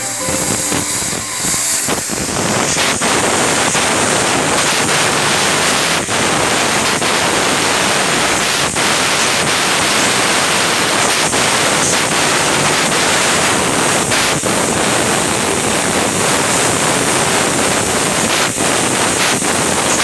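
Steady loud hiss of a CNC sheet-metal cutting machine's head cutting through the steel sheet, with a thin high whine over it. The hiss comes up about two seconds in and is broken by brief dropouts every second or two.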